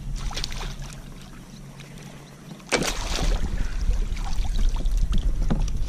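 Handling knocks and clicks around a fishing kayak as a hooked sheepshead is brought in, with one sudden loud thump a little under three seconds in.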